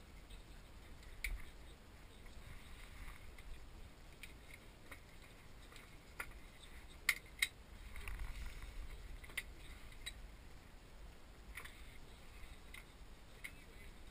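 Small wooden automaton parts being handled and fitted together by hand: scattered light clicks and taps, the sharpest a quick pair about seven seconds in.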